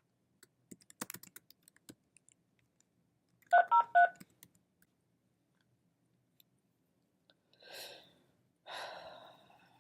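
Keyboard clicking for the first two seconds, then four quick touch-tone (DTMF) dialing beeps about three and a half seconds in, heard over a telephone line while the caller is on hold. Near the end come two short, faint hissy noises on the line.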